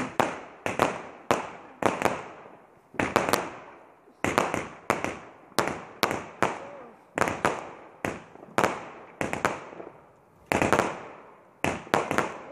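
A multi-shot consumer firework cake firing shot after shot: about twenty sharp bangs, roughly half a second to a second apart, each fading quickly after it.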